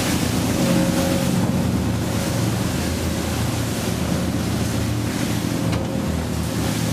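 Powerboat engines droning steadily at speed, under the rush of wake and spray through rough sea and wind buffeting the microphone.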